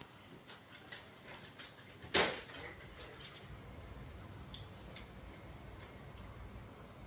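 Scattered light clicks and taps, with one much louder knock about two seconds in, followed by a steady low hum.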